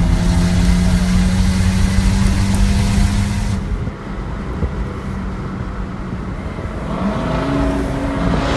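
Car engine heard from inside the cabin at highway speed. It holds a loud, steady high-rpm drone for the first few seconds, then turns quieter, and near the end the note climbs as the car accelerates hard.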